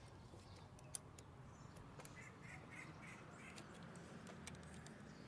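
Near silence: faint room tone with a few faint clicks and, a couple of seconds in, a brief run of faint, evenly spaced ticks.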